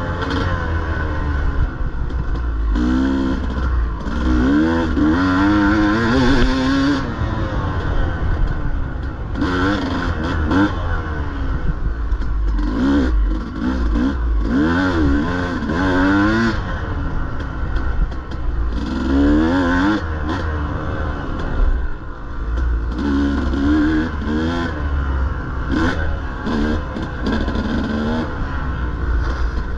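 Dirt bike engine revving up and down continually as it is ridden hard through an enduro course, its pitch rising and dropping every second or two over a steady low rumble.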